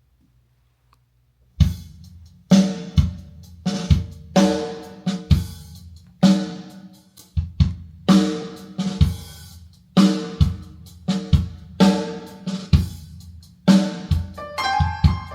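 Drum-kit intro (kick, snare and cymbals) played back through Linn 360 hi-fi loudspeakers. It starts after about a second and a half of silence as a steady beat. Pitched chords join in near the end.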